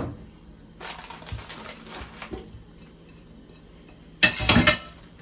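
Kitchen handling noises: light scattered clicking and rustling, then a louder burst of sharp clatter about four seconds in.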